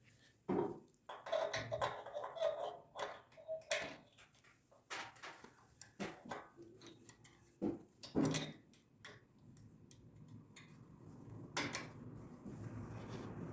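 Irregular clicks, taps and light metallic knocks of small carburetor parts and hand tools being handled and fitted during reassembly, a few of them ringing briefly. A steady hiss builds up near the end.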